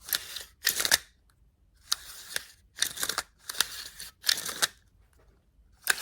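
Rebuilt recoil pull-start from an HPI Baja 5B's 23cc engine being worked by hand, the new cord rasping as it is pulled out and wound back in, about six short strokes in quick pairs.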